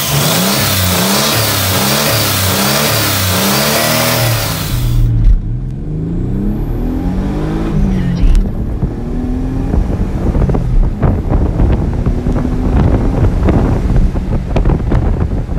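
Nissan 300ZX V6 engine revved up and down repeatedly, then, heard from inside the cabin, pulling hard at wide-open throttle through the gears. The engine note climbs steadily, drops back at each shift, and climbs again. Sharp clicks and rattles run alongside during the run.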